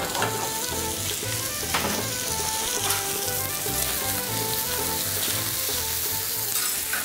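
Steak and vegetables sizzling steadily as they fry on a flat-top griddle and in a pan, with a couple of sharp clicks of a metal utensil. Background music with a steady low beat plays underneath.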